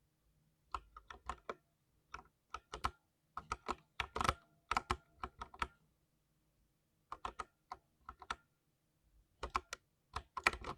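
Typing on a 60% mechanical keyboard: quick runs of key clicks in bursts, broken by short pauses of about a second.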